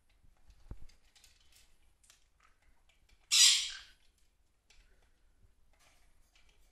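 A green-cheeked conure working a clear plastic food-tumbler toy filled with pellets and clay litter: scattered light clicks and rattles, a soft knock just under a second in, and one loud, short rasping burst a little over three seconds in.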